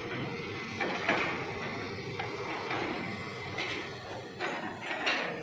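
Hitachi Zaxis long-reach excavator working: a steady engine and hydraulic running noise, with several short, sharp mechanical sounds from the arm and bucket about a second in and again in the last two seconds.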